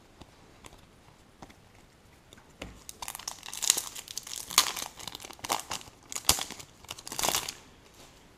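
Wrapper of a trading-card pack being torn open and crinkled: a run of loud crackly bursts lasting about four seconds, after a few faint clicks of cards being handled.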